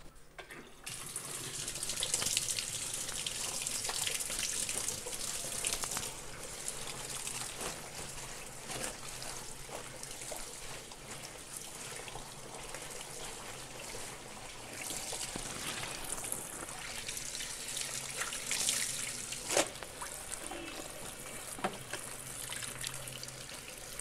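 Water running from a hose into the plastic spin tub of a semi-automatic washing machine and draining straight out, starting about a second in, with wet clothes being pushed in and a few knocks in the second half.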